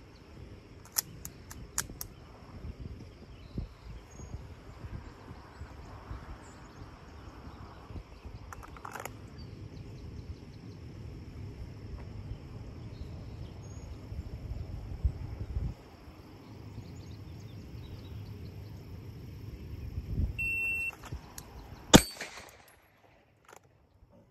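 A few sharp handling clicks from a 1911-style pistol in the first seconds over a low steady rumble, then a short high electronic beep from a shot timer. About a second and a half after the beep comes a single pistol shot from a draw, the loudest sound, with a brief ring.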